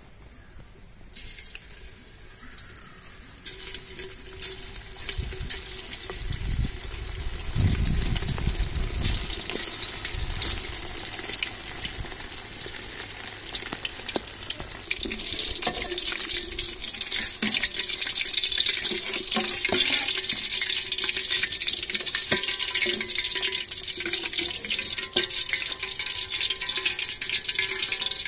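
Marinated chicken pakoda pieces deep-frying in hot oil in an aluminium kadai: a crackling sizzle that builds and grows louder as the pieces go in, then holds steady and dense from about halfway. A low rumble sounds around eight seconds in.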